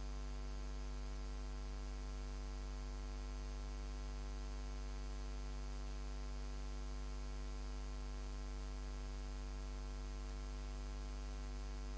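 Steady electrical mains hum in the microphone and sound-system chain: a low, buzzy drone that does not change.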